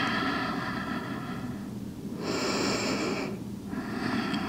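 Slow, audible human breathing: three soft breaths, each one to two seconds long, with short pauses between them.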